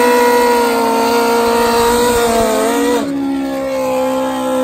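Nitrous drag-racing sport-bike engine held at high, steady revs during a burnout, spinning the radial street tire. The engine note shifts and dips about three seconds in, then settles again.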